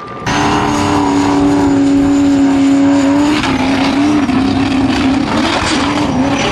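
Formula Offroad buggy's engine at high revs as it climbs a steep sand slope on paddle tyres, cutting in sharply just after the start. The note holds steady for about three seconds, then wavers up and down as the car bucks up the hill with its wheels spinning in the sand.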